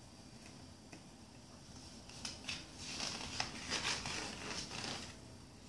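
Paper rustling as a picture book's pages are handled and turned, beginning about two seconds in and lasting about three seconds, with several sharper crackles of the page.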